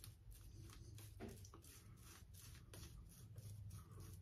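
Faint scraping of an Above The Tie S2 slant open-comb safety razor cutting lathered stubble on the cheek, in short repeated strokes of about four a second.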